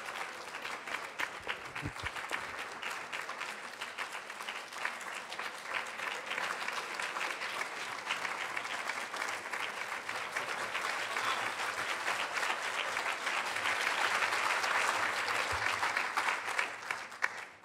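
Audience applauding: steady, dense clapping that grows a little louder near the end, then dies away quickly.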